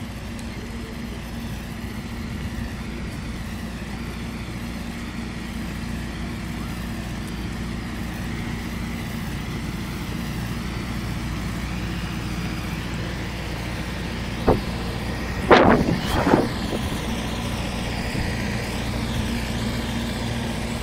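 Steady low hum of an idling motor vehicle engine. About two thirds of the way through there is a click, then a short louder sound.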